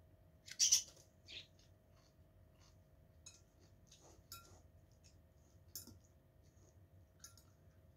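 Metal fork clinking and scraping against a ceramic bowl of salad: a few faint, scattered light clicks a second or more apart.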